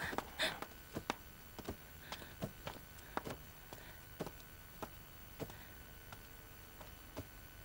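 Faint, irregular soft knocks and taps of a person crawling on hands and knees across a tiled floor, coming every fraction of a second at first and thinning out after about halfway.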